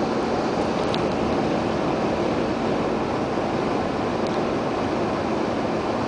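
Steady rush of tyre, road and wind noise inside a car's cabin while driving on a snow-covered highway in a strong wind.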